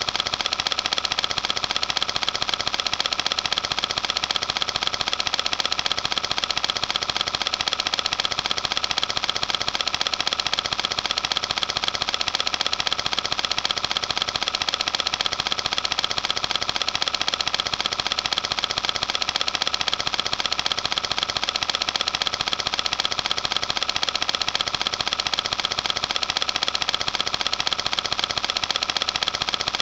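Film projector running: a steady, rapid mechanical clatter that does not change.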